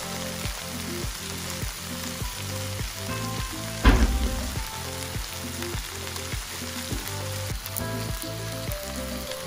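Chopped pork sisig frying in melting butter in a nonstick pan, a steady sizzle, with one sharp knock about four seconds in.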